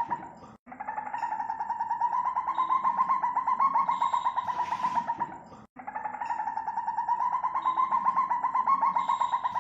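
African civet call: a rapidly pulsing, trill-like call at a steady middle pitch. It breaks off abruptly twice, about five seconds apart, and starts again the same each time.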